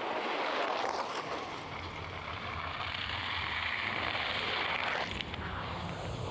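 Ski jumper's skis running down the inrun track at speed: a steady hiss that stops about five seconds in at take-off, with a low rush of wind underneath.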